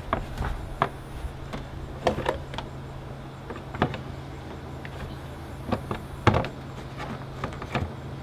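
Plastic engine cover on a 3.5 L V6 being pressed and snapped down onto its mounts: a scattered series of short clicks and knocks, the loudest about six seconds in, over a steady low hum.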